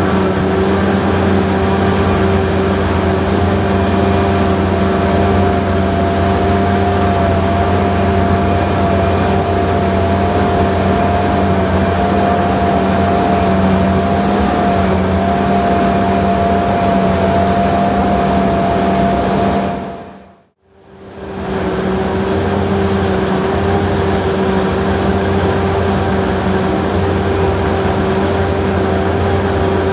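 Self-propelled John Deere forage harvesters running under load while chopping corn silage: a steady engine and cutterhead drone with a constant whine. The sound fades out briefly about two-thirds of the way through, then resumes.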